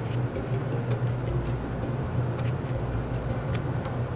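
Black felt-tip marker stroking across paper as a scatter of faint scratchy ticks, over a steady low hum.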